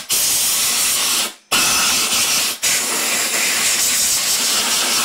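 Compressed-air blow gun blasting air into the crevices around a lawnmower engine's oil filler to clear out oil residue: a loud, even hiss. It breaks off briefly about a second and a half in and again about two and a half seconds in, then carries on.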